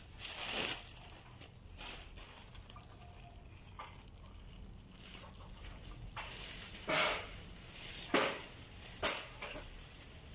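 Several short rustling noises, the loudest about seven, eight and nine seconds in, over a faint steady outdoor background.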